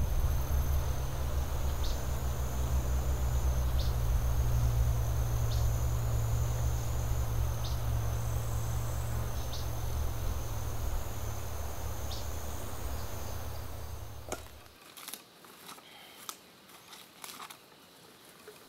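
A high, steady insect buzz, with a short chirp about every two seconds, over a strong low rumble. Near the end the rumble stops, and quieter scattered crackles and rustles follow.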